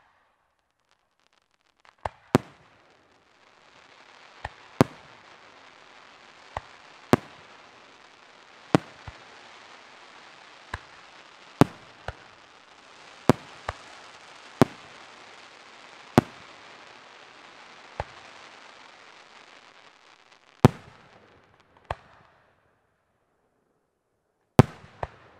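Aerial firework shells bursting in the night sky, with about fifteen sharp bangs at uneven spacing, one every second or two. A steady hiss runs between the bangs for most of the stretch, drops away near the end, and then a last couple of bangs come.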